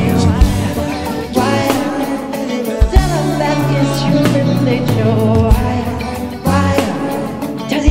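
Band music from a live rehearsal of a pop ballad, with bass and drums under a voice singing without clear words, and drum hits every few seconds.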